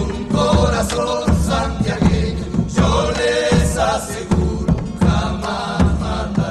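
Argentine folk song: voices singing over a rhythmic acoustic accompaniment.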